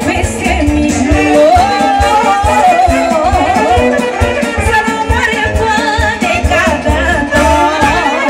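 Live Romanian lăutar folk music: a quick, ornamented melody line over a steady, pulsing bass beat.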